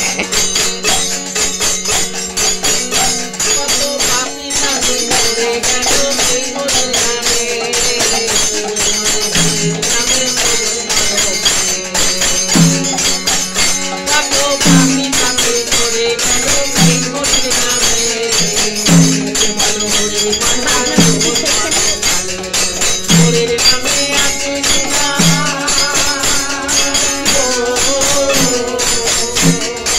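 Bengali devotional kirtan: a harmonium holds the tune, a khol drum beats out low strokes and small hand cymbals jingle continuously, with voices singing along.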